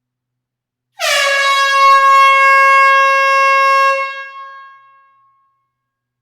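Air horn giving one long blast, about a second in: a slight drop in pitch as it starts, a steady loud note held for about three seconds, then dying away over a second or so.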